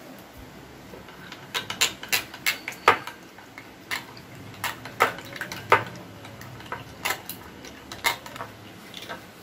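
A spoon stirring gelatin into hot water in a glass bowl, clinking irregularly against the glass about once or twice a second.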